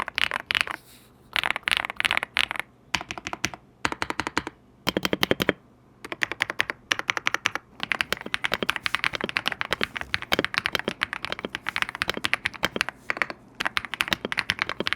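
Typing on an Ajazz MK87 mechanical keyboard with factory-lubed linear switches in a gasket-mounted, dampened case, giving a thocky keystroke sound. Short bursts of keypresses come in the first five seconds, then fast continuous typing from about six seconds in.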